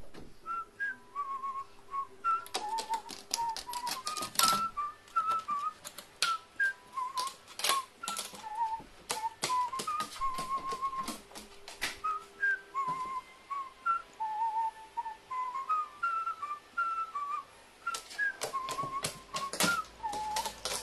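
Irregular sharp clicks and taps of a carrion crow's beak pecking at a bent-wire object, under a whistled tune that wanders up and down.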